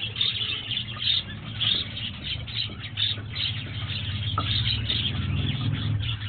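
A flock of budgerigars chattering and chirping continuously. A low rumble like a passing vehicle swells underneath in the second half and drops away at the end.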